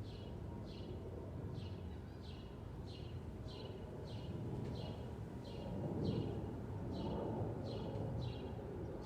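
A bird repeating one short, downward-sweeping chirp about one and a half times a second, over a low rumble of breeze and distant traffic that swells a little past the middle.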